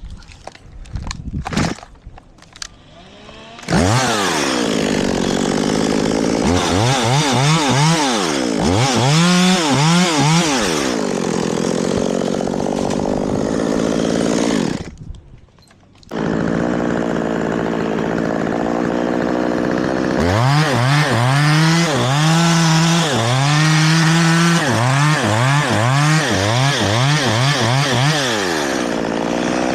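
Chainsaw engine starting up about four seconds in after a few knocks, then running loud with its pitch repeatedly rising and falling as it is throttled through cuts. It drops out abruptly about halfway, then runs again with more throttle rises and falls.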